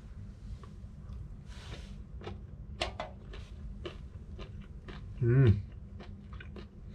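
Chewing a piece of blanched flathead stomach, a firm, crunchy food: a run of irregular, crisp crunches, with a short hum about five seconds in.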